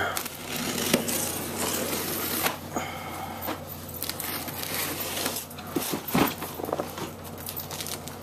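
Packing tape on a cardboard box being slit and torn open, with irregular scraping and rustling of cardboard as the box flaps are worked open near the end.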